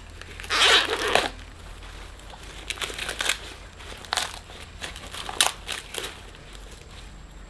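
Dry crackling and crunching in irregular bursts, as dry material is handled: a loud burst about half a second in, then several shorter ones.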